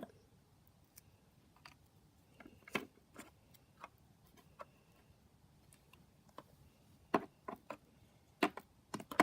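Scattered light clicks and taps from small plastic toy figurines being handled. They are sparse at first and come more often in the last couple of seconds.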